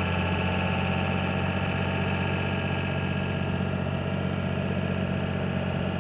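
A vehicle's engine running steadily, heard from inside the cab as it drives, with an even hum.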